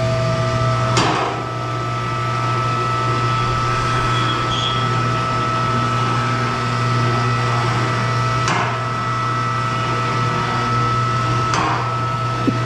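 Steady electric motor hum of a vehicle lift's hydraulic pump raising the car, with three sharp knocks, about a second in and twice near the end.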